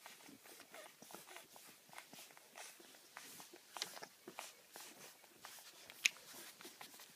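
Stabyhoun puppies suckling at their mother's teats: faint, irregular wet smacking and sucking clicks, with one sharper click about six seconds in.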